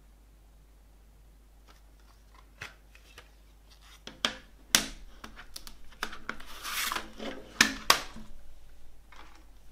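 Clear plastic CD jewel case being handled: a string of clicks and clacks as it is opened, a scraping rub, then two sharp clacks close together near the end as it is shut and laid on a wooden table.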